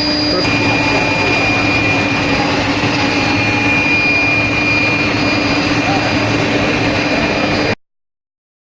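Machinery of an induction-heating steel-rail heat-treatment line running steadily and loudly, a dense noise with a steady high whine through it. It cuts off suddenly near the end.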